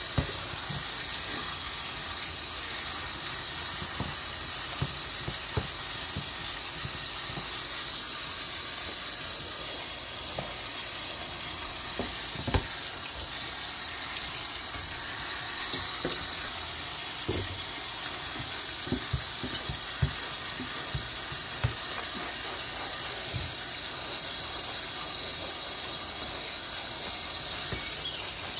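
Kitchen tap running steadily into a stainless steel sink while plastic colanders and a plate are scrubbed under it, with occasional knocks of the dishes against the sink.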